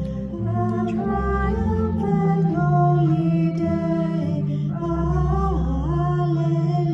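A congregational hymn sung over long, steady held chords and bass notes that change every second or so.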